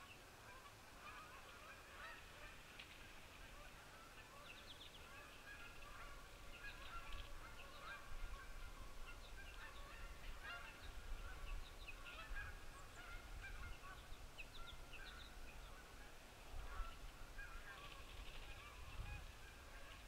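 Birds calling: a faint chorus of many short, overlapping calls, busiest in the middle, over a low rumble that comes and goes.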